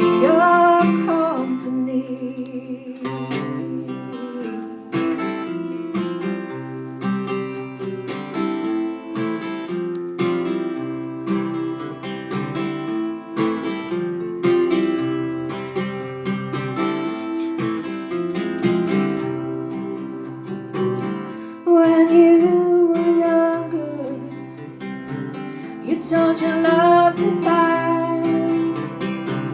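Live band music: strummed acoustic guitar with a bass line, and a woman singing in phrases that come in at the start, about two-thirds of the way through, and again near the end.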